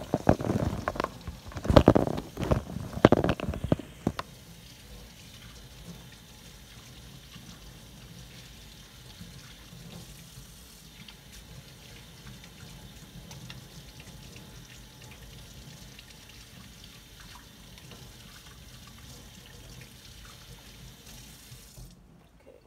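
Water running from a faucet into a sink as hands are washed, loud and uneven for the first four seconds or so, then dropping to a faint, steady hiss.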